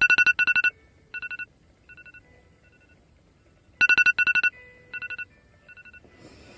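Smartphone alarm tone sounding: clusters of rapid electronic beeps, each followed by fainter repeats. The whole pattern comes twice, about four seconds apart.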